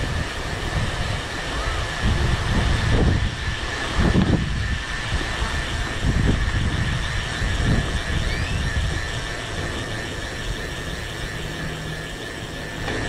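Wind buffeting the microphone of a handlebar or chest camera on a moving bicycle, a low rumble with several stronger gusts in the first half, over the hum of tyres on concrete. A thin steady high tone runs underneath.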